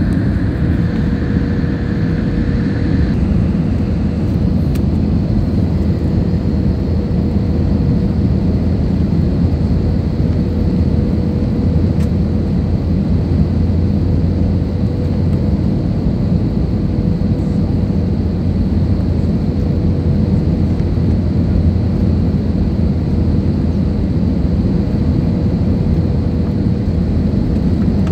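Steady jet-engine and airflow noise heard inside the cabin of an Airbus A320-family airliner descending on approach with its flaps extended. A steady whine runs through it, and a higher tone stops about three seconds in.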